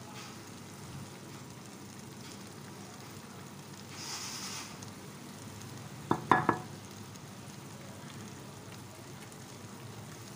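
Pilao rice and chickpeas simmering in a large pot, a steady bubbling sizzle as the water cooks down. There is a brief hiss about four seconds in and a quick cluster of sharp clicks just after six seconds, the loudest sound.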